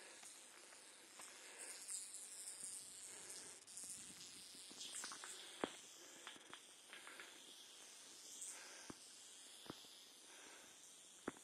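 Rattlesnake rattling its tail: a faint, continuous high buzz, the defensive warning of an agitated snake. A few sharp clicks break in during the second half.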